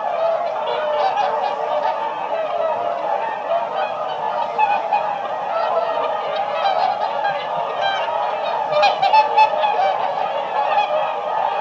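A flock of swans calling continuously, with many calls overlapping, and a cluster of louder, sharper calls about three-quarters of the way through.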